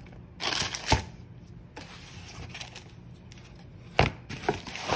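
Paper and cardboard rustling as a takeout box and the pastry inside it are handled, with a short rustle ending in a knock about a second in and a sharper knock about four seconds in.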